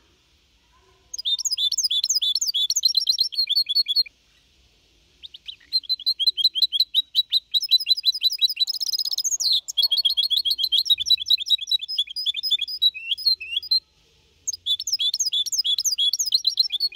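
Young goldfinch–canary hybrid (mixto) singing a Málaga-style goldfinch song: rapid, high trills and twitters in three bouts, breaking off briefly twice.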